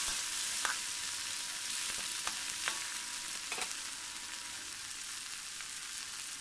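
Chopped onion, tomato, green chilli and tempering spices sizzling in hot oil in a metal kadai. In the first few seconds a metal ladle clinks against the pan a few times as it stirs, and then the steady sizzle goes on alone.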